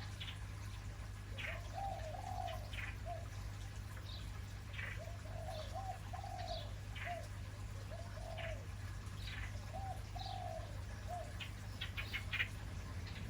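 Birds calling: a low, arched call repeated in short groups every second or two, with quick high chirps between them and a brief cluster of chirps near the end, over a steady low hum.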